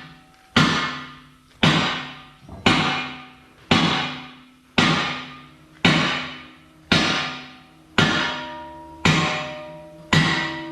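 Hammer striking steel on a jaw crusher, ten heavy blows about a second apart. Each blow rings on with metallic tones that hang on longer in the last few strikes.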